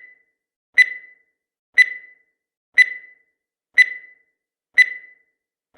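Countdown timer sound effect: a short, sharp, high tick with a brief ringing decay, repeating evenly once a second, five times.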